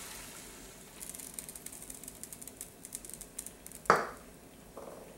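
Onion and garlic sautéing in butter in a nonstick frying pan, the sizzle dying down as milk goes in, then a quick crackle of fine pops for a couple of seconds. A single knock sounds about four seconds in.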